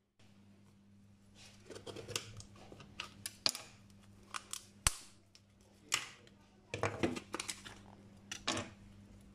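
Hard coconut shell cracking and snapping as pieces are broken off by hand, then a peeler scraping the brown skin. The shell comes away easily because the coconut has been baked in the oven. The cracks and clicks come irregularly, several a second at times.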